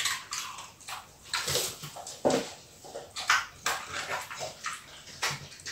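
Staffordshire bull terrier chewing chunks of raw cucumber: irregular wet crunches, about two a second.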